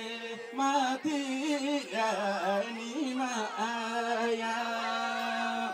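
A man singing a Nepali folk song through a microphone. The melody wavers at first, then settles on one long held note for about the last two seconds.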